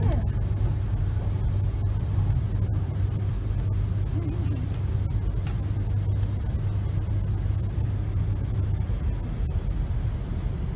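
Steady low rumble and hum inside the carriage of a Class 390 Pendolino electric train.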